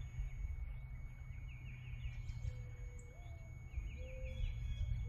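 Outdoor ambience: birds chirping in two short runs, about a second and a half in and again near four seconds, with a few lower whistled notes in between, over a low rumble and a thin, steady high-pitched whine.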